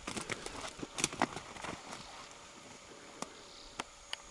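Crackling and clicking from someone moving close to the microphone: a dense irregular run in the first two seconds, loudest about a second in, then a few single clicks.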